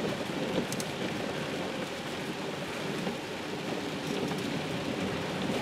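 Steady rain on a moving car's roof and windscreen, heard from inside the cabin, with wet-road tyre noise underneath.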